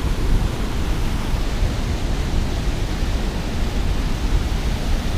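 Water pouring over a dam spillway and churning below it: a steady, low rush of noise.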